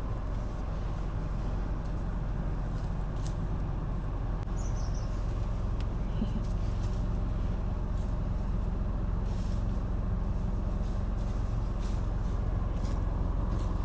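Steady rumble of a moving vehicle, road and wind noise, with a few faint ticks.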